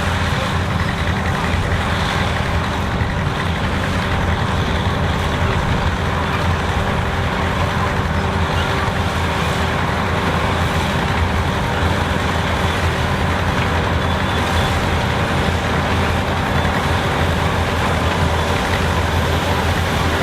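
Vintage harvesting machinery, a tractor or combine engine, running steadily with a constant low drone and no change in speed.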